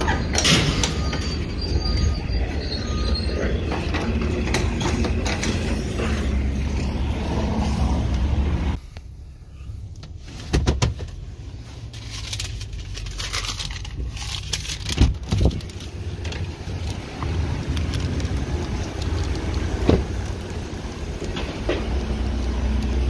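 Pickup truck running and moving slowly, with a steady low hum, heard more quietly from inside the cab after about nine seconds. A few sharp metal clanks near the start from a utility trailer's mesh gate being latched, and scattered clicks and knocks later.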